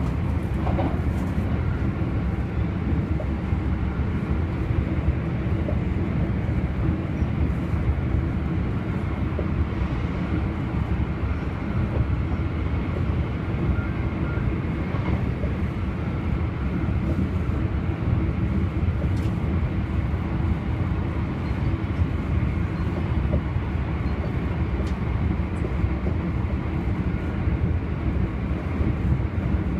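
Cabin noise inside a moving Narita Express train: a steady low running rumble, with a few faint clicks.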